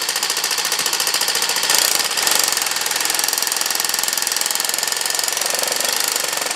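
Milwaukee M18 cordless reciprocating saw running steadily, its rapid back-and-forth stroke working a Klein 72-tooth ratcheting screwdriver through a linkage to drive a screw slowly: a fast, even mechanical rattle.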